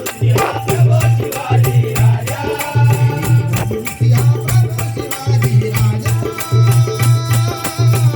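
Bhajan accompaniment: pakhawaj and tabla drumming a steady, driving beat of deep bass strokes with jingling percussion, under long held melodic notes.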